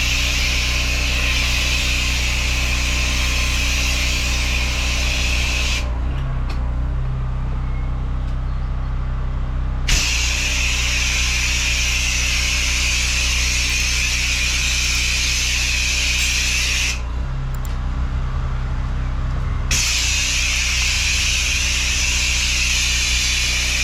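Pressure washer running with its jet spraying in a steady hiss over a constant motor hum. The spray stops twice, for about four seconds a quarter of the way in and for about three seconds past two-thirds, while the motor keeps running with a shifted tone.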